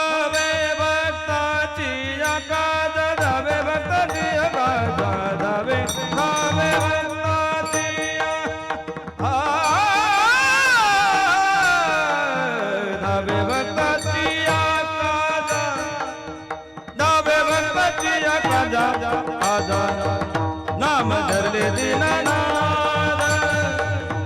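Warkari kirtan singing: a male voice sings bending, ornamented lines over regular mridang strokes and a steady drone. About a third of the way in the drum drops out while the voice holds a long phrase that slides down in pitch, and the drumming comes back after about eight seconds.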